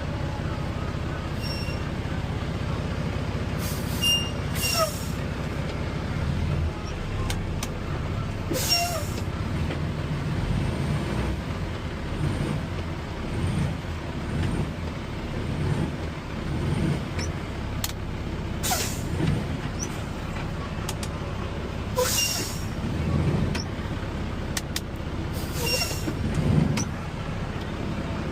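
Concrete mixer truck's diesel engine running steadily, with about six short air hisses from the truck's air system spread through the stretch.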